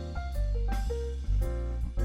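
Background music: a light instrumental tune with a bass line, drums and melody notes.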